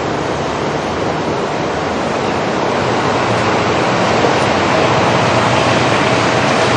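Electric train passing through a level crossing close by: a steady roar of wheels on rails that slowly grows louder.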